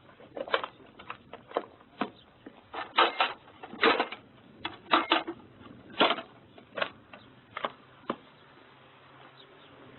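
A string of irregular sharp clicks and knocks, one or two a second, that stop after about eight seconds.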